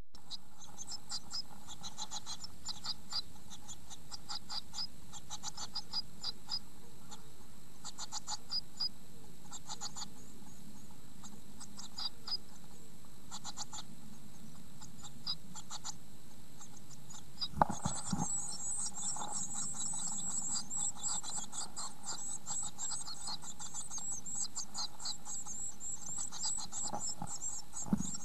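Two-week-old blue tit nestlings in a nest box giving high, rapid begging calls in short clusters. A loud knock comes about two-thirds of the way in, after which the calling becomes a dense, continuous chorus. Another knock sounds near the end.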